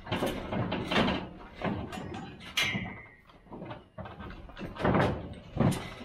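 Steel pipe livestock pens and a stock trailer banging and clanging as cattle are loaded, a string of irregular knocks. One clang just past the middle rings on briefly.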